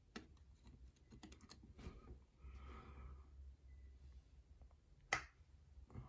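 Faint clicks of steel tweezers picking up and setting down small brass lock pins in a plastic pin tray: several light ticks in the first two seconds, a soft rustle near the middle, and one sharper click about five seconds in.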